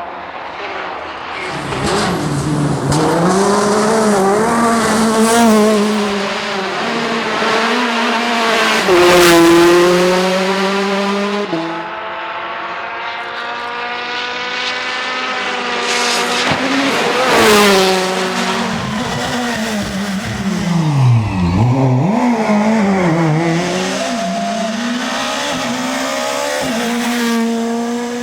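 Rally cars driven flat out one after another, engines revving hard and rising and falling in pitch through gear changes as they brake, corner and accelerate away, with some tyre squeal.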